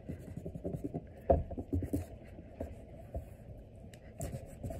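A kitchen knife sawing and scraping into the hard rind of a Boston Marrow winter squash, with small knocks on the cutting board. The sound is irregular, and the sharpest knock comes about a second in.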